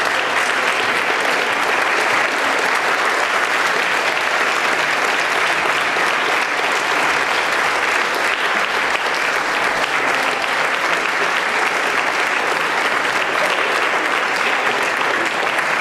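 A seated audience applauding, a dense, even clapping that keeps up steadily without a break.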